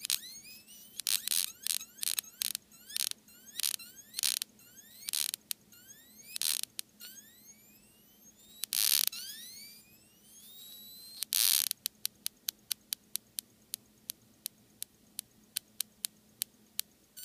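A flyback-transformer high-voltage driver (555 timer with a TV horizontal output transistor) whining in repeated rising pitch glides, broken by loud short bursts of hissing discharge. About two-thirds of the way in, these give way to a steady run of sharp snaps, about three a second.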